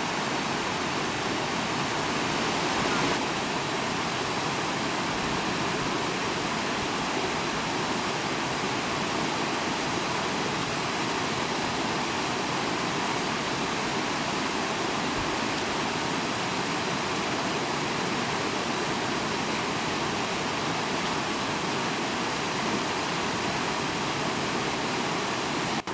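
Rain-swollen mountain river rushing fast, with a small cascade pouring over rocks into it: a steady, even rush of water.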